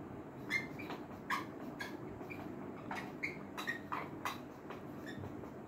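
Whiteboard marker squeaking across the board while writing, in about ten short strokes at uneven intervals.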